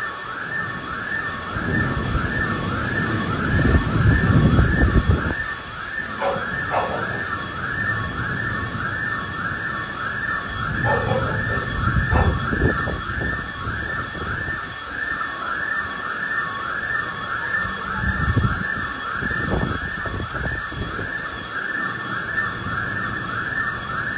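An alarm siren warbling rapidly up and down, a few cycles a second, without a break. Under it, the rush of floodwater runs through the street, with low rumbling surges that are loudest about four seconds in.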